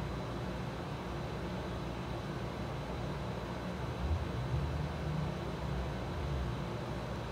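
Steady low rumble of background noise, swelling slightly about halfway through, with a faint high steady tone above it.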